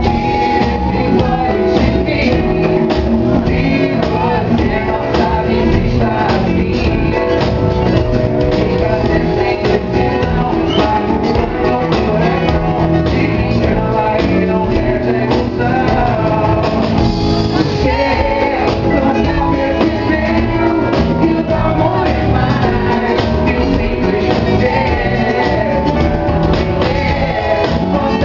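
A man singing into a microphone over loud live band music with drums, amplified through a club's sound system.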